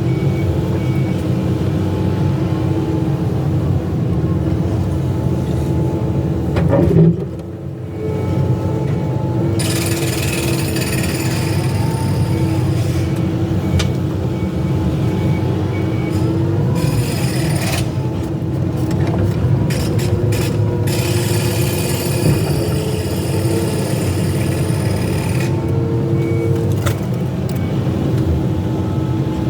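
Excavator's diesel engine running steadily under load, with a constant low rumble and a steady hum. Briefly drops away about seven seconds in, and from about ten seconds in a harsh high-pitched hiss or scraping sits over the engine for some fifteen seconds.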